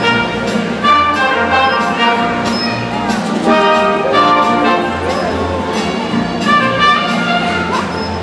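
Orchestral music with prominent brass instruments, playing continuously.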